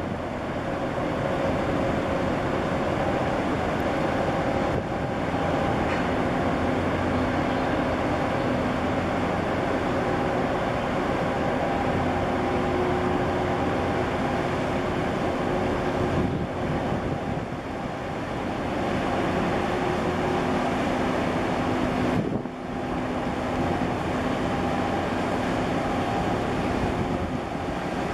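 Steady rushing noise, partly wind on the microphone, with a faint droning hum from the large container ship sailing past that fades in and out.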